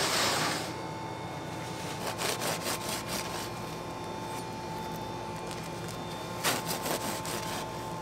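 A knife sawing through the crust of a baked pretzel loaf, slicing it open lengthwise, in two short runs of rasping strokes: one about two seconds in and another near the end. A brief loud rush of noise comes at the very start, and a steady hum runs underneath.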